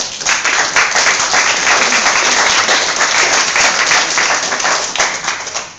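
A roomful of people clapping, loud and dense, dying away near the end.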